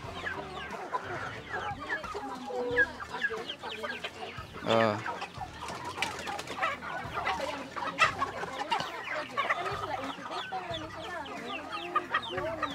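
A flock of heritage-breed chickens clucking, many short calls overlapping without a break while the birds feed.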